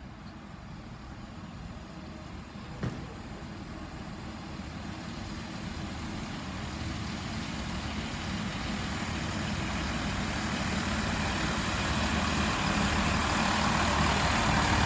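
Chiltern Railways Class 165 diesel multiple unit approaching and running in alongside, its diesel engines and running noise growing steadily louder as it nears. A single sharp click about three seconds in.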